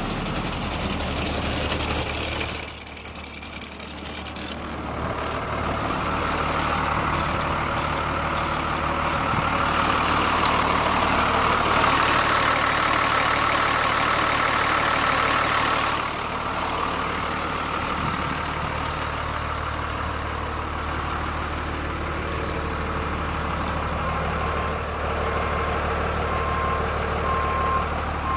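Diesel engine of a Blue Bird TC2000 front-engine school bus idling steadily. A hiss sounds in the first couple of seconds, and short evenly spaced beeps start near the end.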